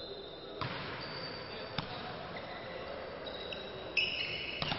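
Volleyball rally in a sports hall: the ball is struck with sharp slaps about half a second and about two seconds in, over the hall's ambience. Near the end come a few brief high squeaks and another hit.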